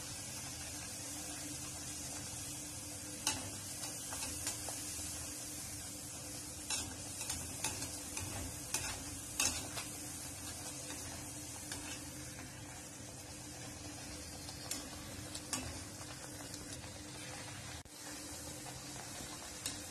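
Poori deep-frying in hot oil in a steel kadhai, a steady sizzle, with scattered sharp clicks and taps of a metal skimmer against the pan as the poori is pressed and turned.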